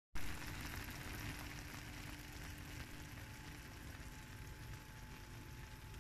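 A freshly baked dish of zucchini in cream and cheese sizzling softly, a steady crackling hiss over a low hum.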